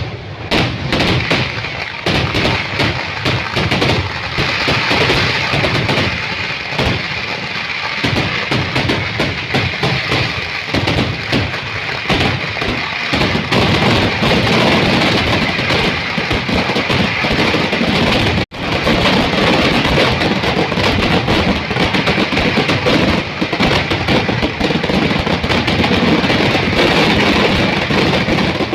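Fireworks barrage: a dense, continuous run of firecracker blasts and crackling, packed so close that they merge into a steady din. The sound cuts out for an instant about two-thirds of the way through.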